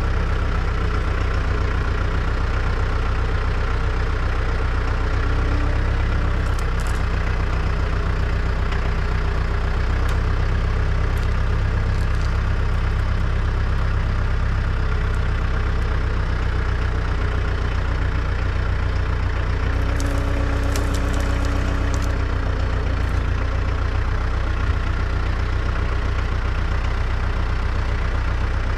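Branson 3725H compact tractor's diesel engine running steadily while its loader forks work a log, with a few faint clicks.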